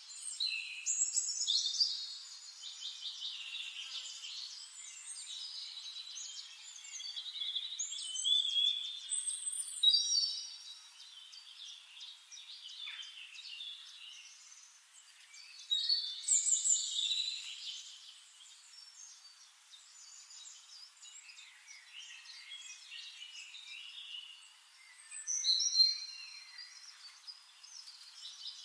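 Flame-faced tanager song and calls: high, thin chirps and twitters, rising to louder bursts of song every several seconds with softer chattering between.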